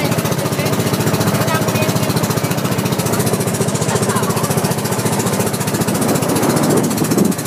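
Outrigger boat's engine running steadily, with a fast, even chugging.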